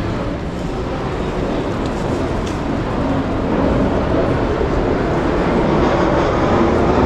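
Loud, steady rumble of a passing vehicle, growing slowly louder.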